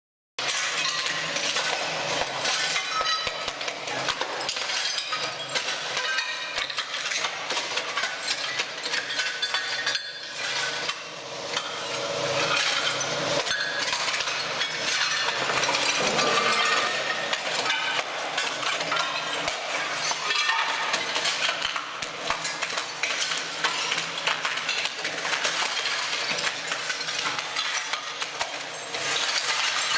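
ROLL-STRIPPER tracked ride-on floor stripper chiselling ceramic tiles off the floor: a dense, continuous clatter of cracking tiles and clinking shards, cutting in abruptly just after the start.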